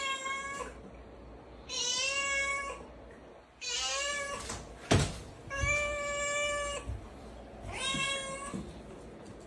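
Domestic cat meowing over and over: five long, level-pitched meows about two seconds apart. A single sharp click comes about halfway through.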